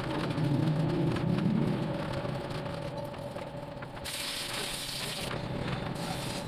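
Steady low rumble of a vehicle engine with a faint hum, louder for the first two seconds. A brighter hiss joins in about four seconds in.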